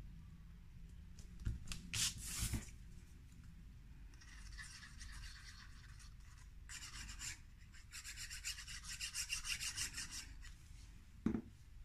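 Fingers rubbing a paper strip flat onto cardstock, then the tip of a liquid glue bottle scraped back and forth over a narrow strip of paper in quick rhythmic strokes, several a second. A short knock near the end.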